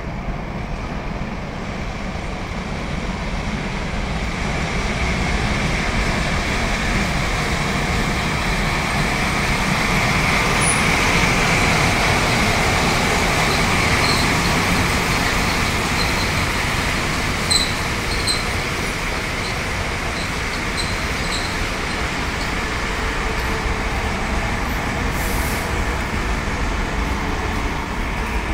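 Electric-locomotive-hauled train passing close alongside the platform: a steady rumble and rush of wheels on rail that swells to its loudest about ten to fourteen seconds in, then eases off. There are a few faint, short squeaks in the middle.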